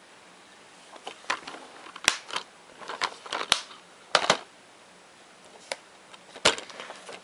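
Plastic multi-disc DVD case being closed and handled: a string of sharp plastic clicks and clacks, the loudest about two seconds in, around four seconds in and near the end.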